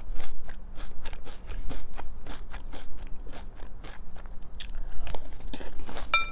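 A person chewing crunchy breakfast cereal, a quick irregular run of crisp crunches. Near the end a spoon clinks against the bowl with a short ring.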